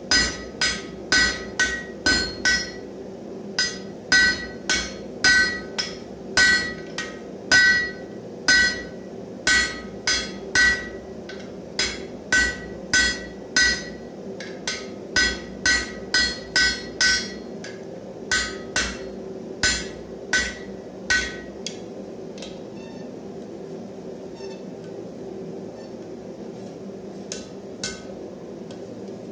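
Ball-pein hammer striking a red-hot bar laid over a hardy cutter on the anvil: a steady run of ringing metallic blows, about two a second, as the bar is notched. The blows stop a little over twenty seconds in, and a few lone strikes follow near the end.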